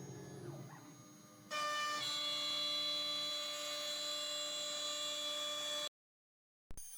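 CNC router running, a steady high whine of several tones that jumps louder about a second and a half in. The sound cuts out completely for under a second near the end.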